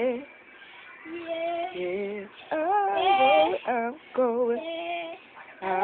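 A young boy singing a gospel song in drawn-out phrases, his high voice wavering and sliding in pitch, with short breaks between the phrases.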